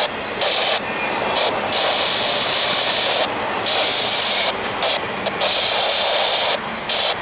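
Intermodal freight train's container-laden cars rolling past: steady wheel-on-rail rumble and clatter with a high ringing band, dipping in level several times as the cars go by.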